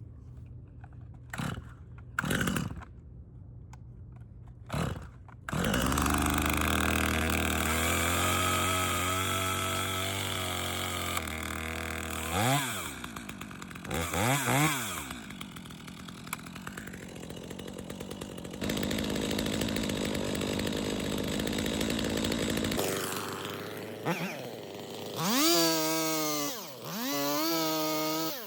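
Stihl MS 250 two-stroke chainsaw being pull-started, with a few short tugs of the starter before it catches about five seconds in. It then runs and is revved up and down several times, with quick throttle blips near the end.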